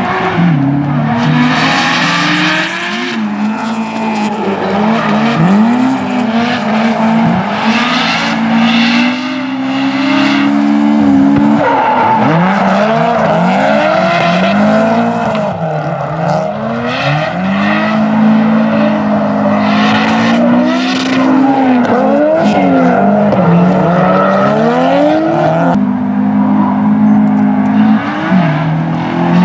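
Drift cars' engines revving hard and sliding through a corner, their pitch climbing and falling again and again as the throttle is worked, with tyres squealing and skidding in repeated bursts.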